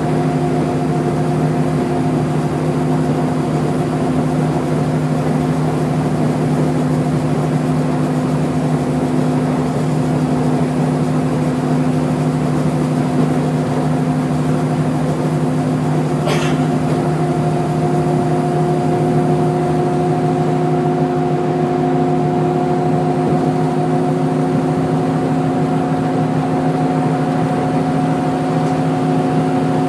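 Bus cabin sound of a NABI 40-LFW's Cummins ISL-G natural-gas engine and Allison B400R transmission cruising at a steady speed: an even drone with road and tyre noise. A single short click sounds about halfway through.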